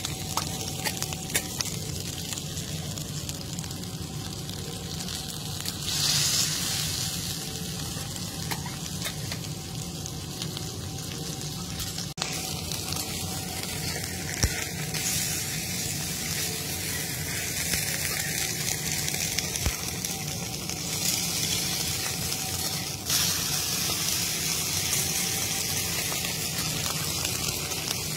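Beef steaks sizzling on a hot flat steel griddle: a steady frying hiss that jumps in level abruptly a few times.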